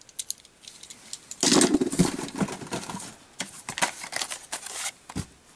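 Carded Hot Wheels cars being handled and pulled from a cardboard shipping case: plastic blister packs and card stock rustling and clacking, thickest about a second and a half in.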